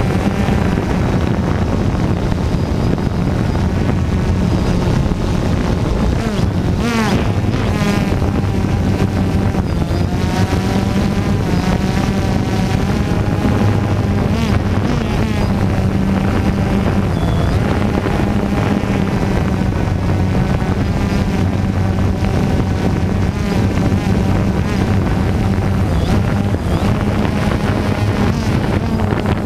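DJI Phantom 2 quadcopter's four electric motors and propellers buzzing steadily as it hovers, heard close up from the camera slung beneath it. The whine wavers up and down in pitch as the motors change speed, most sharply about seven seconds in, with wind noise on the microphone.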